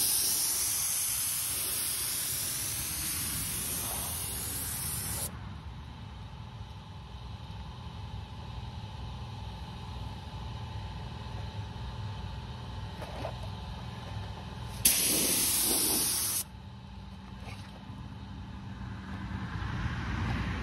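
Gravity-feed spray gun spraying clear coat: a hiss of compressed air in one long pass of about five seconds, then a second short pass of about a second and a half later on. A steady low hum runs underneath.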